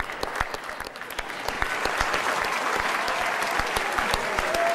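Audience applauding, the clapping starting sharply and building over the first two seconds into steady applause.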